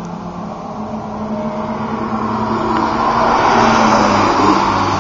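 Car on a race track approaching and going past at speed, engine and tyre noise swelling to its loudest about four seconds in, then starting to fade.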